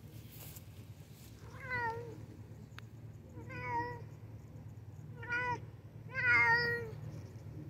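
White Turkish Angora cat meowing four times, short calls each dropping in pitch at the end, the last one longest and loudest.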